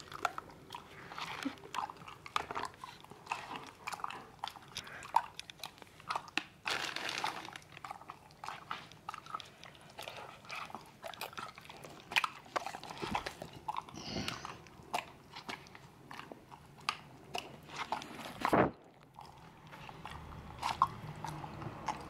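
A yellow Labrador eating wet food off a spoon: wet chewing and smacking with many small clicks. A louder breath through the nose comes about seven seconds in, and a sharper noise comes near eighteen seconds.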